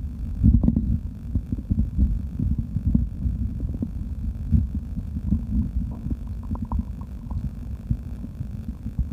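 Close-miked human stomach growling after drinking: a steady stream of short, irregular low gurgles and rumbles, with a few brief higher squeaks about two-thirds of the way in.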